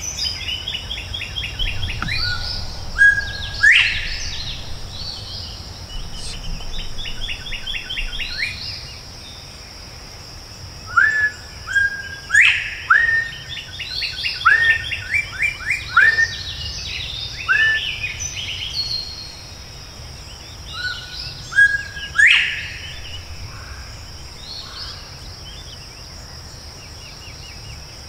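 Northern bobwhite quail whistling its 'bob-white' call three times, a short level note then a sharply rising whistle, answered by rapid chattering notes of other birds, over a steady high insect drone.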